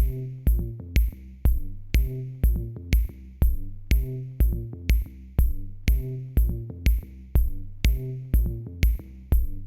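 Electronic music with a steady drum-machine beat, about two beats a second: a deep kick and a crisp high tick on each beat, over bass and synth notes.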